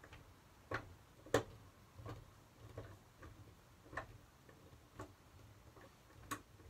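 Faint, irregular clicks, roughly one a second, the loudest about a second and a half in, as a Phillips screwdriver turns the small screw in an Airstream dinette window's interior knob, tightening back in a screw that had worked loose.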